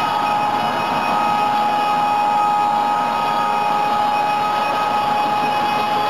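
AVG LP-60 electric band sawmill sawing lengthwise through a log, running steadily with a high whine over the cutting noise.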